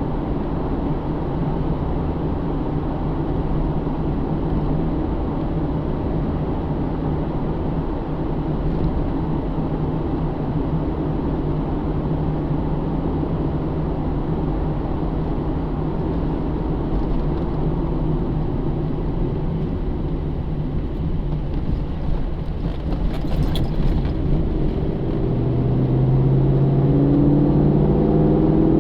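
Inside the cabin of a 2009 Pontiac G8 GT, its 6.0 L V8 drones steadily under tyre and road noise while cruising. Near the end the engine note rises in pitch and grows louder as the car accelerates.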